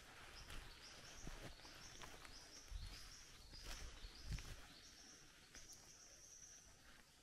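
Very faint forest quiet with a few soft footsteps on a bush track, and a series of short, high chirps repeating through most of the stretch.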